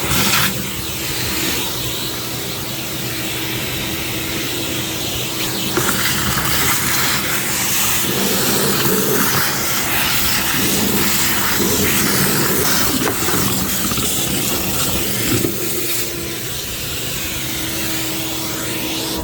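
Shop-Vac wet/dry vacuum running steadily, a motor hum under a loud rush of air, with the sound of the airflow changing a few times.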